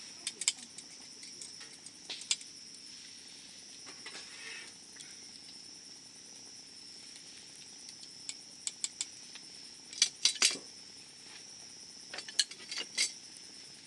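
Wood campfire crackling, with irregular sharp pops that come in clusters, the loudest around ten seconds in and again near the end. Under it runs a steady, high, shrill insect trill.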